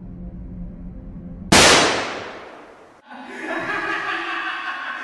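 Dark, droning horror intro music, broken about a second and a half in by a sudden loud crash that dies away over a second and a half. Then a sustained sound holding several steady pitches begins.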